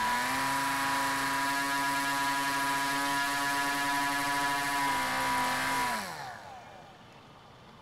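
Converted RC airplane's electric motor and propeller driving it as a boat, running at a steady high whine. About five seconds in, the motor spins down, its pitch falling until it stops.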